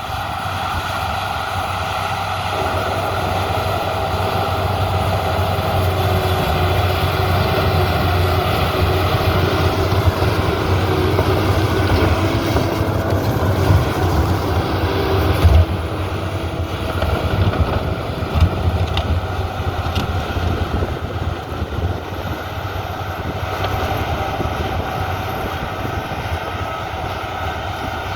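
Heavy earthmoving machine's diesel engine running steadily with a deep hum, with a few sharp knocks near the middle.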